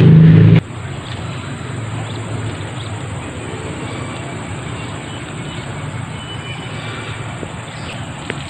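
A loud low rumble cuts off abruptly half a second in. It gives way to a steady low outdoor rumble with a faint, steady high-pitched tone above it.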